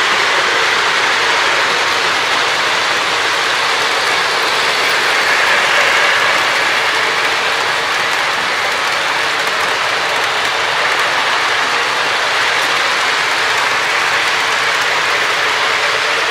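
Lionel O-gauge model freight train rolling fast over the layout track: a loud, steady rattling clatter of wheels and cars. The owner finds the train this noisy at its top speed of about 127 scale miles per hour.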